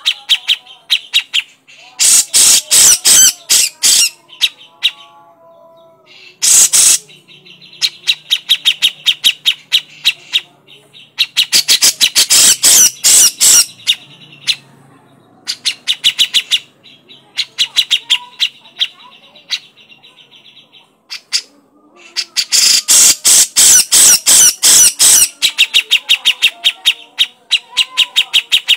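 Grey-cheeked bulbul (cucak jenggot) giving its harsh, rapid chattering call, about a dozen notes a second. It comes in loud bursts of one to three seconds, four of them, with softer chatter in between.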